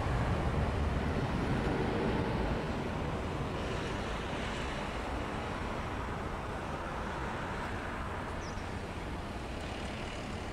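Boeing 737 airliner's jet engines rumbling as it rolls out along the runway after touchdown; the steady noise slowly fades as the plane moves away.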